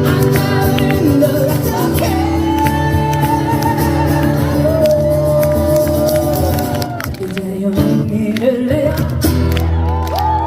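Live song performance: a singing voice holding long, drawn-out notes over a full band accompaniment.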